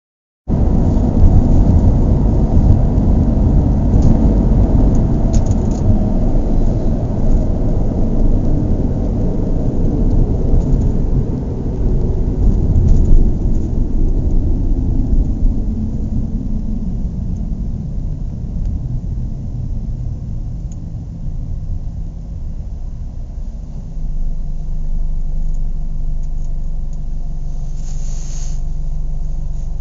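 Car driving with a heavy engine and road rumble, then slowing down over several seconds and settling into a steady idle, with a brief hiss near the end.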